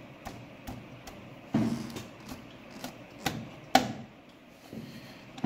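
Irregular clicks and light knocks of hand tools and metal parts being handled during motorcycle gearbox cover reassembly, with one sharper clack about two-thirds of the way through.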